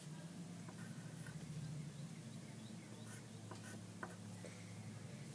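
Faint pencil writing on paper, with scattered short scratching strokes and light taps over a low steady hum.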